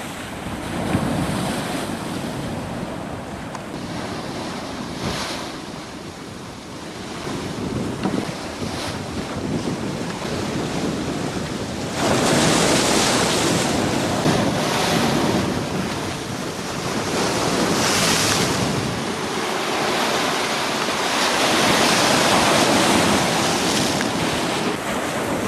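Ocean surf washing in on a rocky shoreline, with wind buffeting the microphone. The waves swell louder in surges, most sharply about halfway through and again twice toward the end.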